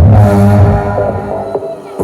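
Electronic music with a heavy sustained bass note and steady synth tones, played as the test sound for a speaker balance check. It fades out near the end.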